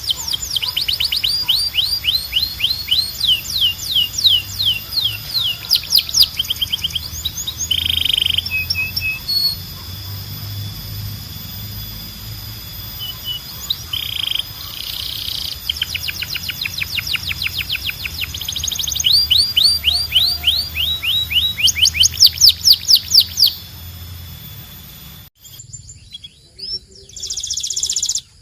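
Belgian canary singing: fast trills of rapidly repeated high, downward-sliding chirps, broken by a few short lower notes. The song stops abruptly about 25 seconds in, then a brief phrase starts again near the end.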